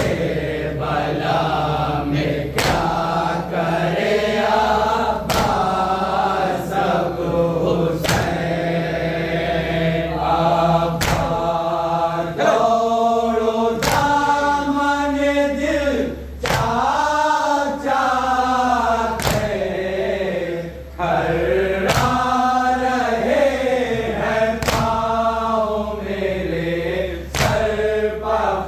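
A group of men chanting a noha, a Shia mourning lament, in unison. A sharp beat about every one and a half seconds keeps time, the sound of matam (chest-beating).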